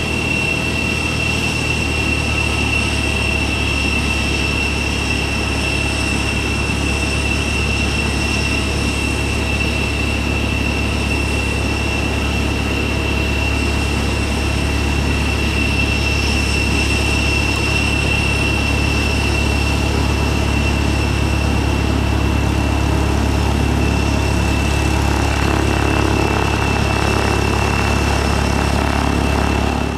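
Cessna 172's piston engine and propeller running steadily at low taxiing power, a constant low drone with a thin, steady high whine above it.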